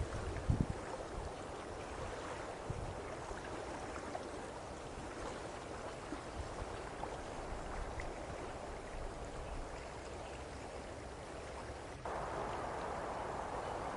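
Steady rushing of water with wind, and a few low wind bumps on the microphone in the first second. About twelve seconds in the sound cuts abruptly to a louder, steadier rush.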